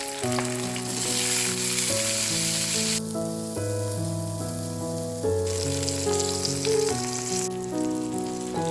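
Food sizzling as it fries in hot oil in a pan. The sizzle fades about a third of the way in, comes back around the middle and eases near the end, over background music of steady held notes.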